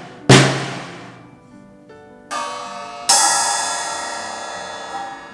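A drum on a PDP drum kit is struck once, ringing with a low tone, then a cymbal is hit twice, the second crash louder and ringing on for a couple of seconds. The hits echo in a bare room.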